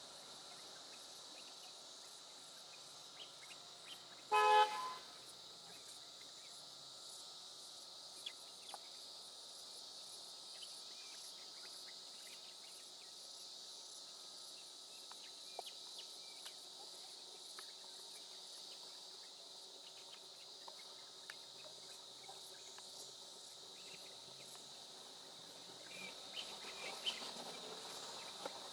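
Steady chirring of insects such as crickets, with one short, loud vehicle horn blast about four seconds in.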